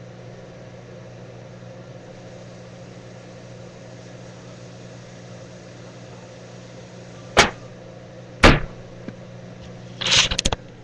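Steady low electrical hum, broken about two-thirds of the way in by two sharp knocks about a second apart, then a brief clatter just before the end.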